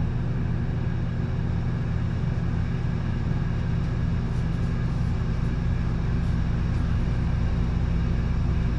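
A motor running steadily, a continuous low mechanical hum with no change in speed.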